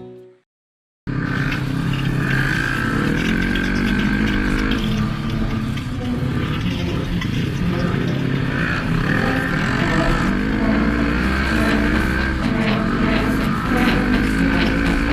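Quad bike (ATV) engine running under way, starting suddenly about a second in, its pitch rising and falling with the throttle over a steady rush of noise.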